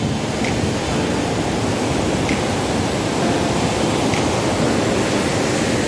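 Steady rush of a torrent of white water churning through a rocky gorge below a hydroelectric dam.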